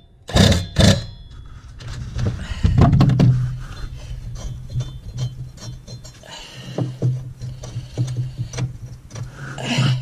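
Metal clanks and scrapes of tools on a lawn mower's blade, with two sharp knocks in the first second, over background music.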